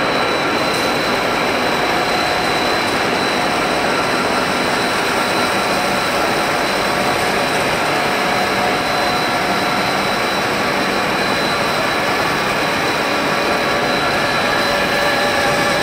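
Steady machine noise of a running PE plastic pipe extrusion line, with a thin high whine held at one pitch over it.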